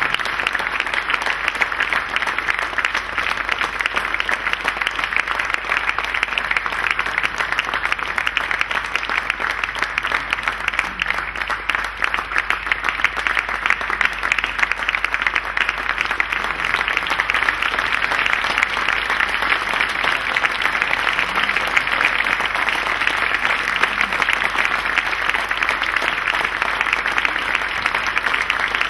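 Audience applauding: continuous, steady clapping from many hands.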